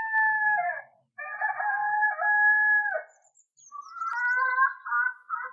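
A rooster crowing twice, each crow a long call held at a steady pitch that drops at the end, followed about four seconds in by a quick run of short, broken calls.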